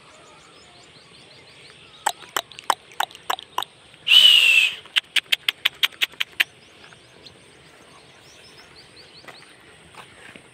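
A run of sharp clicks, about three a second, then a short loud hissing burst with a faint falling whistle in it, then a quicker run of clicks, about six a second; faint bird chirps go on behind.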